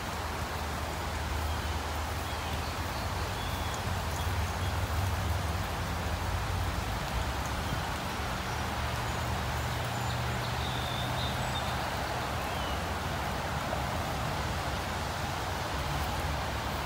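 Steady hiss of light rain falling on the garden's foliage and lawn, over a low rumble, with a few faint high bird chirps now and then.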